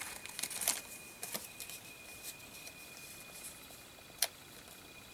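Faint rustling and light taps of paper and craft supplies being handled, thinning out after about a second and a half, with a single sharp click about four seconds in.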